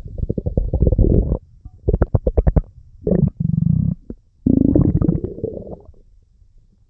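Stomach rumbling and gurgling in four bouts: a long gurgle, a quick run of about ten pops a second, a low growl, and another long gurgle about halfway through.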